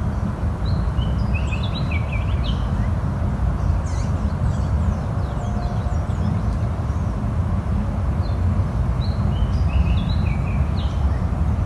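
Steady low outdoor rumble with small birds chirping over it: short clusters of quick high chirps about a second in, again around four seconds, and again near the end.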